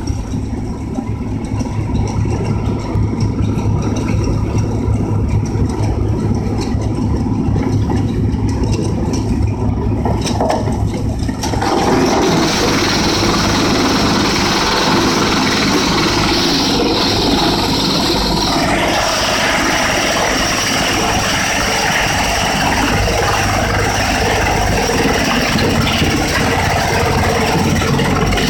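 Engine of a forestry machine running steadily. About twelve seconds in it steps up to a louder, harsher sound and stays there.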